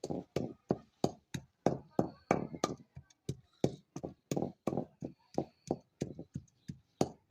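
Ginger, garlic and jaggery being pounded into a paste: a steady run of strikes, about three a second.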